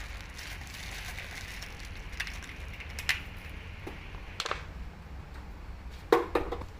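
Kitchen utensils knocking and clattering against cookware a few times while seasoning is mixed in, the loudest two knocks close together near the end, over a faint steady hiss.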